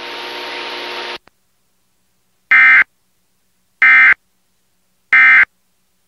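Emergency Alert System end-of-message code: three short, harsh digital data bursts about a second apart, marking the end of the severe thunderstorm warning. Before them, about a second of broadcast hiss cuts off.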